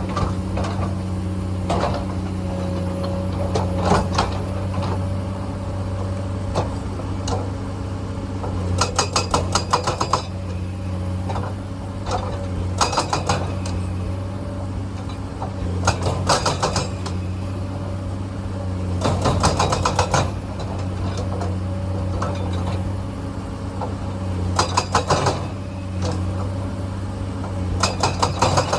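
Komatsu excavator's diesel engine running at a steady speed, with repeated short bursts of rapid clattering as the machine works rock.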